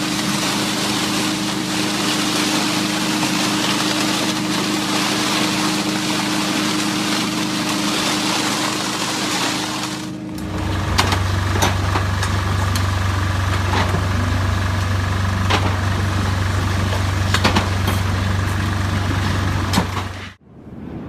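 Heavy construction machinery running steadily, a loud engine hum with a noisy mechanical wash. About halfway through it switches abruptly to a different, deeper steady hum with scattered clicks and knocks, and it cuts off suddenly near the end.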